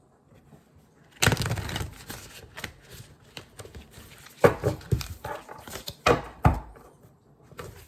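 Oracle cards being handled on a table: a loud rustle of cards about a second in, then a string of taps and short scrapes as cards are slid out and laid down.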